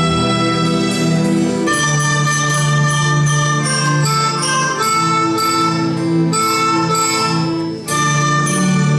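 School instrumental ensemble playing an Andean sikura folk tune, with melodicas and flutes holding sustained melody notes and bell-like struck notes over them.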